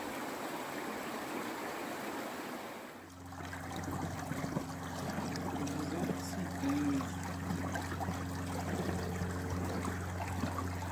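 Shallow creek water trickling and running between snow and ice, a steady rushing. About three seconds in the sound shifts and a low steady hum joins it.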